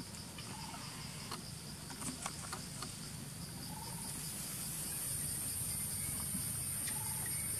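Forest insects chirping in a steady pulsing trill, joined about four to five seconds in by a higher, louder insect drone. Scattered light clicks and rustles run underneath.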